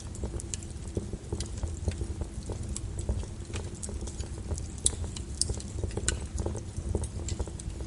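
Wood fire burning in a fireplace, crackling and popping with many irregular snaps over a low steady rumble of the flames.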